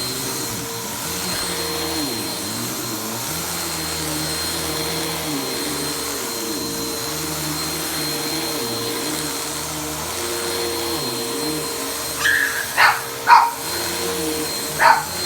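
Vacuum cleaner running on carpet, a steady motor whine with a lower hum that wavers in pitch as it is pushed back and forth. A dog barks at it several times near the end.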